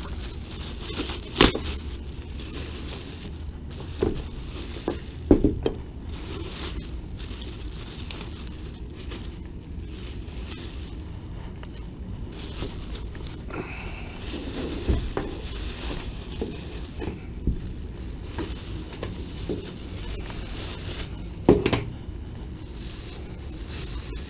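Clear plastic packaging crinkling and rustling as lathe parts are unwrapped, with a few sharp knocks of parts being handled and set down, the loudest about a second and a half in and again near the end.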